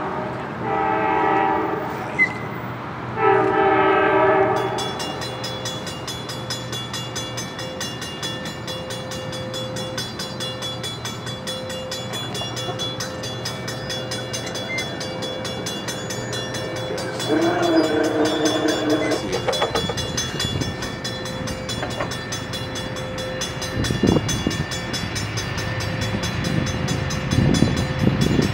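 Horn of an approaching diesel commuter train, heard from a distance: chord blasts in the first few seconds, then another single blast about 18 s in. A steady low hum runs underneath, and the rumble of the train grows toward the end as it nears.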